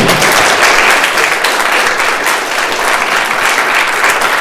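Audience applauding: many people clapping together, loud and steady.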